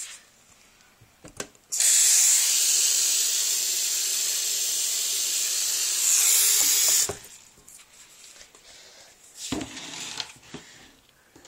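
Kitchen tap running to rinse salad greens: a steady hiss of water that starts suddenly about two seconds in and shuts off about five seconds later. A few light knocks and handling sounds follow.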